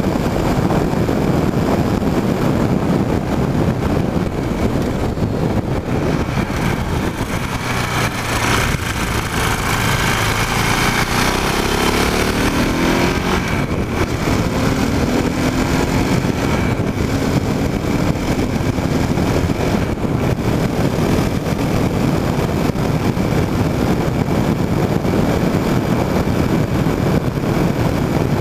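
KTM Duke motorcycle engine running as the bike rides along, heard on board with steady wind and road noise. The engine note falls in pitch about halfway through.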